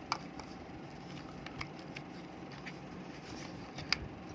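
A few scattered sharp plastic clicks and light taps from computer mice being handled and clicked, the loudest near the end, over a faint steady hum.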